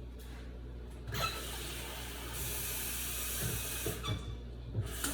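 Water running from a kitchen tap and filling a container for about three seconds, starting about a second in, followed by a few light knocks.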